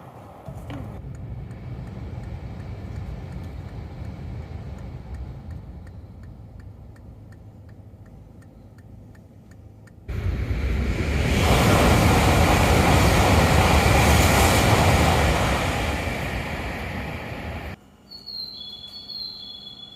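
Tohoku Shinkansen Hayabusa train passing through at high speed: a loud rushing noise that starts abruptly about halfway in, holds for several seconds and then fades away. Before it there is a low steady rumble, and near the end a few high steady tones are heard.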